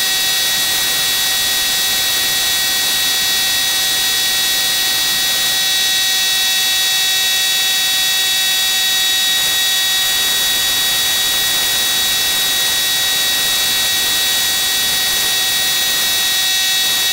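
Compressed-air paint spray gun and its air compressor running: a steady loud hiss with a high, unchanging whine.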